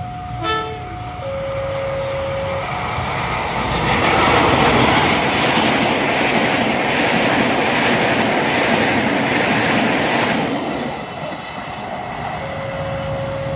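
Parcel train's wagons running past close by, with the wheels clattering on the rails; the noise swells about three and a half seconds in and fades near the end as the tail passes. A level-crossing warning alarm sounds two alternating steady tones before and after the train goes by.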